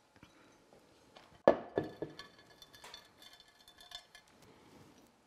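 Glassware knocked and clinked on a countertop: two sharp knocks about a second and a half in, then lighter clinks and taps of glass with a faint ring.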